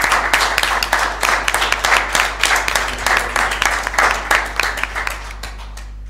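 Audience applauding, many hands clapping, thinning out and stopping near the end.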